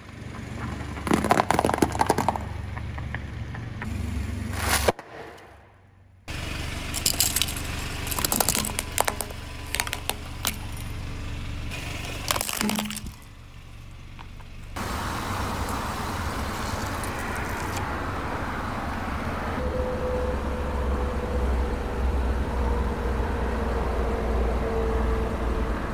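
Things cracking and crunching as a car tyre rolls over them, in several short bursts of sharp cracks over the first half. After that comes a steadier stretch of low rumble from the car.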